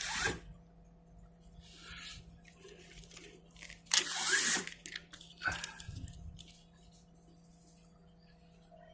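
Crinkling and rustling of paper label stock being handled, in a few short bursts, the loudest about four seconds in. A faint steady electrical hum from the labeling machine runs under it.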